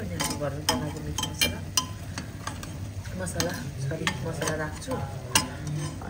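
A metal spatula stirring and scraping meat frying in a pressure cooker pot: repeated sharp clinks of metal on metal over a light sizzle and a steady low hum.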